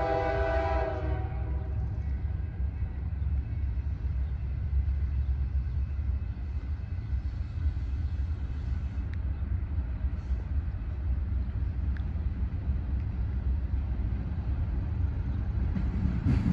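Distant freight locomotive horn sounding a chord that fades out about a second in, followed by a low, steady rumble as the train approaches.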